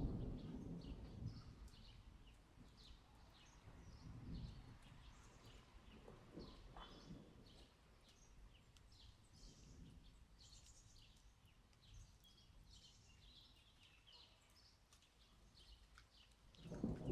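A thunder rumble fades out over the first second or two, leaving a faint lull in the storm with many short, scattered high chirps, like distant birds, over a faint low rumble.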